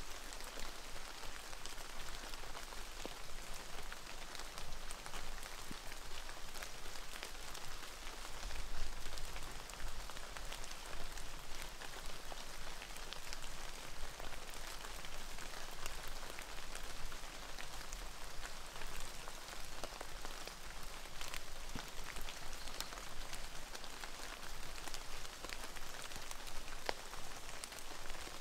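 Water drops pattering: many scattered light ticks over an even hiss, as from rain or drip off wet foliage. A low rumble runs steadily underneath.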